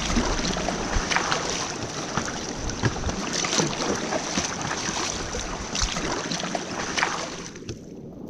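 Stand-up paddle board paddle strokes in river water: irregular splashes and water washing around the board, with wind buffeting the microphone. The sound fades down near the end.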